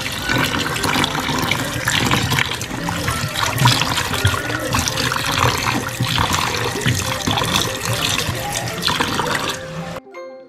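Tap water running into a stainless steel bowl of sliced potatoes in a metal sink, with a hand swishing and rubbing the potatoes in the water. It cuts off suddenly near the end.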